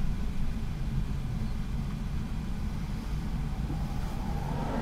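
Steady low rumble of a van's engine and road noise heard from inside the cabin while driving.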